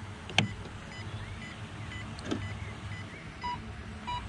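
Short electronic key beeps from a FlySky FS-i6 radio-control transmitter as its buttons are pressed, three in the second half, with a sharp click about half a second in.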